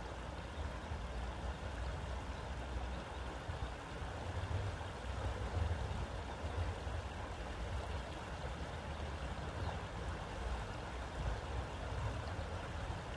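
Shallow creek water running over a small rocky riffle, a steady rushing babble, with a low rumble underneath.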